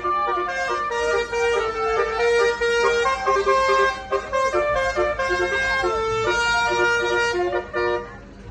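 Bus "telolet" multi-tone horn playing a tune, one note after another, over the low rumble of the bus; it breaks off briefly near the end.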